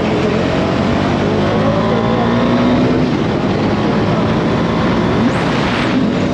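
Bajaj Dominar 250's single-cylinder engine running on its stock exhaust while being ridden, the engine note drifting up and down in pitch. A brief rush of noise comes about five seconds in.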